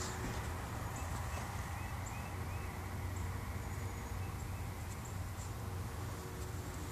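Steady outdoor background noise: a constant low rumble with a few faint, short high chirps.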